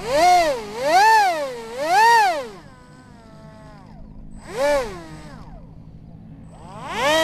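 Brushless electric motor of an RC foam F-22 Raptor jet, spinning a cut-down propeller, revved in short throttle bursts: three quick rising-and-falling whines, then a spin-down, then single bursts about halfway through and near the end.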